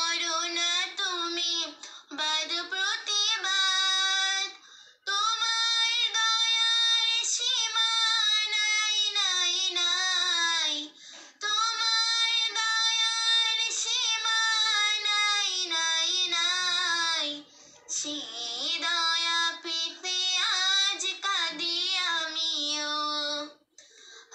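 A young girl singing a Bengali gojol (Islamic devotional song) unaccompanied. Her voice carries long, melismatic phrases with brief pauses for breath between them.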